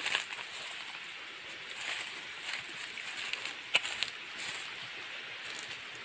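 Steady rushing hiss of a waterfall, with scattered rustles and a couple of sharp clicks about four seconds in.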